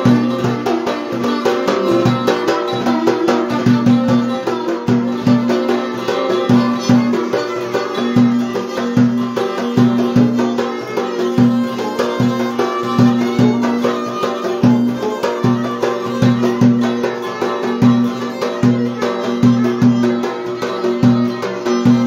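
Turkish Black Sea folk dance tune (oyun havası) played live on violin and a 12-string cümbüş over a davul bass drum beating a steady rhythm.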